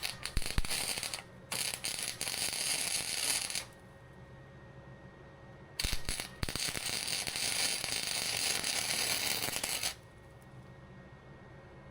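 Arc welder laying two welds on a steel hinge part, a steady crackling sizzle for about three and a half seconds, a pause, then again for about four seconds.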